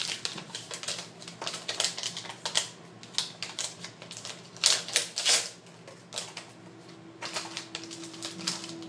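Plastic and paper packaging of a 20-gauge needle being torn open and handled, a run of irregular sharp clicks and crinkles, loudest about halfway through.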